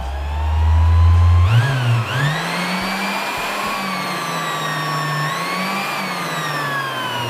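Bort BES-450 random orbital sander running free with no load, its motor whine climbing over the first two seconds as the speed is raised, then holding at high speed with small wavers. It is noisy at high speed. Near the end the pitch begins to fall.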